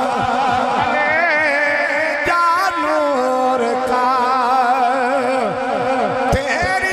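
A man singing devotional verse into a microphone, holding long, ornamented notes that waver with vibrato.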